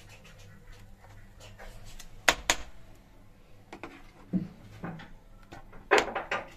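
Steel spoon scraping and clinking against a steel pan and plate as thick cooked gram-flour batter is scooped out, with a scatter of sharp knocks. The loudest come about two seconds in and near the end.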